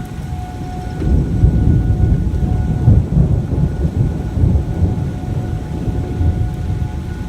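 A long rolling rumble of thunder, loudest from about one to three seconds in. Beneath it the steady tone of an outdoor tornado warning siren carries on faintly.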